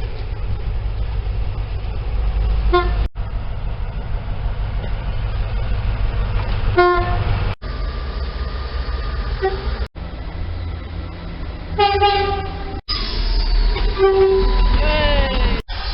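A series of short clips of trains cut together: heavy train rumble throughout, with brief horn toots in most clips and one horn note falling in pitch near the end as the train passes.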